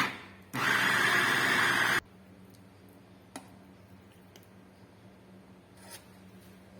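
Electric kitchen blender pulsed while blending chickpeas, tahini and olive oil into hummus: it stops, starts again about half a second in, and cuts off suddenly about two seconds in. After that only a low steady hum and a single faint click remain.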